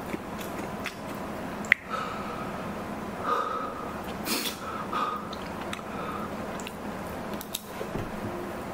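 A man sniffing and gasping as strong wasabi stings his nose, with short breathy exhales and one sharp click about two seconds in.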